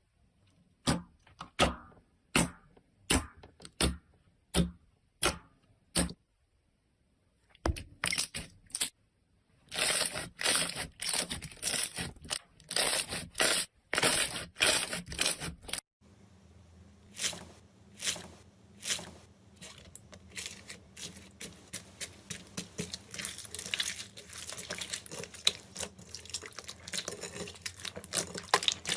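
Slime being pressed and worked by hand, giving sharp pops and clicks. The pops come singly and evenly at first, then turn into dense crackling. After a sudden change of background, a run of clicks grows busier towards the end.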